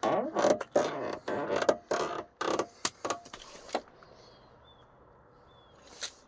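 Creaking and rustling from the cab of a Ram 2500 pickup as it is handled at the open driver's door, with a few sharp clicks. It goes much quieter about four seconds in.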